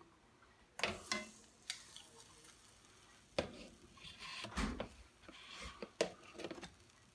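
Metal tongs clicking and knocking against a nonstick skillet as marinated boneless chicken thighs are laid in, in several irregular clicks, with a light sizzle as the meat starts to sear in the hot pan.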